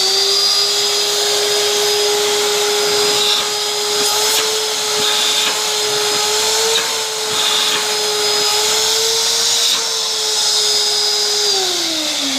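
Electrolux Flex 1400 vacuum cleaner running with a steady whine over rushing air, then switched off near the end, its pitch falling as the motor winds down. It is running normally on a freshly replaced on/off switch.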